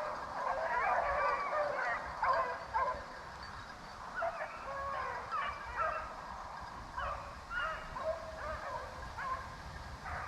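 A pack of rabbit hounds baying in overlapping calls while running a rabbit's trail, heard from some way off.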